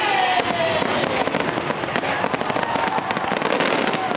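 Many fireworks bursting at once: a dense, continuous run of rapid crackling and popping from the shells and crackling stars.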